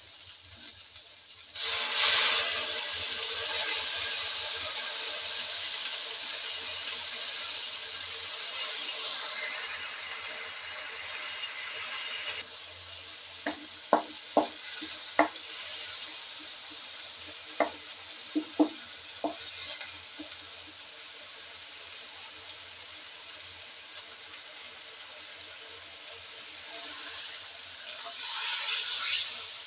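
Sliced onion, garlic and ginger sizzling in hot oil in a non-stick wok, the sizzle dropping suddenly about 12 seconds in. A wooden spatula stirs and knocks against the wok in two short runs of sharp taps near the middle, and near the end water poured into the hot wok hisses.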